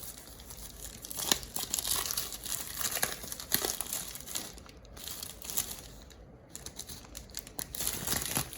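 Plastic blind-bag packaging crinkling as it is handled and torn open by hand, with irregular crackles throughout.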